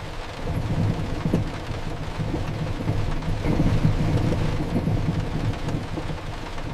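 Heavy rain falling steadily, with a low rolling rumble of thunder swelling and fading beneath it.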